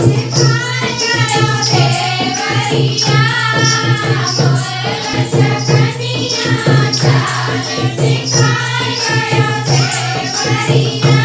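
Rustic Hindi folk dance song: singing over a steady percussion beat with jingling strokes.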